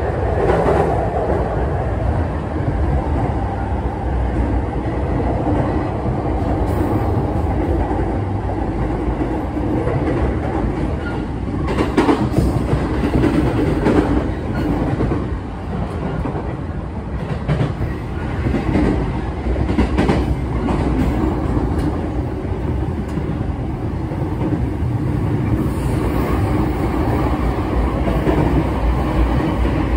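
JR Keiyo Line rapid train running, heard from inside the passenger car: a steady rumble of wheels on rail, with a few louder clacks around the middle.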